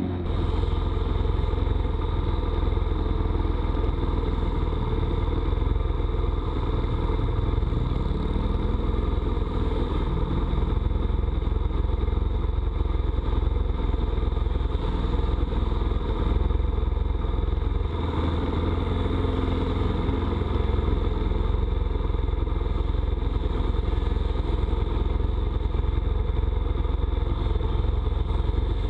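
A pit bike engine idling steadily while the bike stands still. Another pit bike's engine is heard more faintly, rising in pitch a couple of times as it rides around the track.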